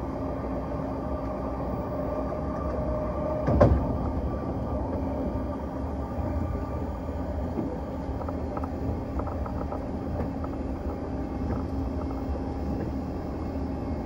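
Passenger train running along the track, heard from on board: a steady rumble with a few steady hums, and a single loud knock about three and a half seconds in.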